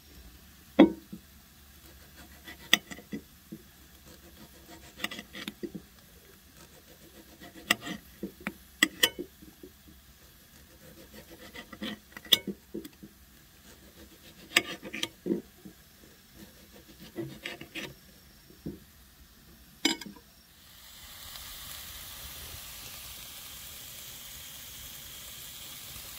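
Kitchen knife slicing tomato, its blade knocking sharply on a glass plate every second or two. About twenty seconds in, a steady sizzle takes over: steak and bread frying on a griddle over a portable gas stove.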